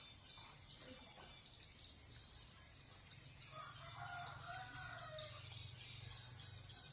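A rooster crowing once, faint, about three and a half seconds in, the call falling away at its end, over a steady high drone of insects.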